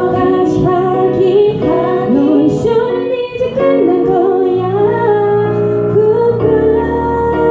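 Young women's vocal group singing a pop song into microphones, with electric keyboard accompaniment, amplified through small stage amps. In the second half the singing settles onto longer held notes over sustained keyboard chords.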